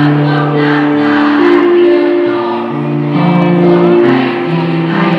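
Student choir singing in harmony: several voice parts hold long notes together, moving to new chords every second or two.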